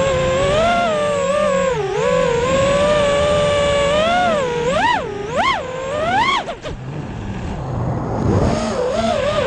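FPV racing quadcopter's brushless motors and propellers whining, the pitch swooping up and down with throttle. Several quick sharp rises come about five to six seconds in as it punches up high, then a rougher rushing sound with the whine low as it comes back down.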